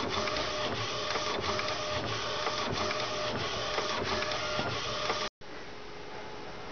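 Epson T1100 inkjet printer, converted for direct-to-garment printing, running as it prints onto a t-shirt, its noise broken by a short dip about every two-thirds of a second. The printer sound cuts off about five seconds in, giving way to a quieter steady hum.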